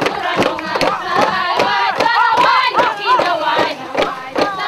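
A group of voices singing and chanting a traditional dance song, with rising-and-falling calls, over a fast, steady percussive beat.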